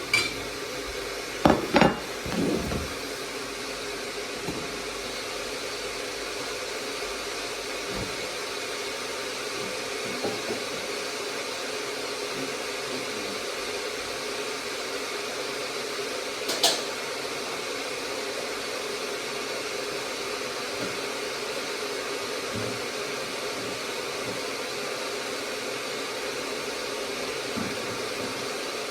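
A steady whirring hum, like a fan or kitchen appliance motor, runs throughout. Dishes clatter with a few sharp knocks in the first three seconds, and a single clink of crockery comes about halfway through.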